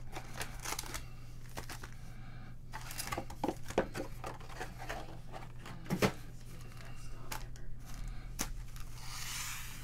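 Trading-card pack wrappers and packaging crinkling and tearing, with cards handled in many short clicks and rustles, and a longer crinkling rustle near the end. A low steady hum runs underneath.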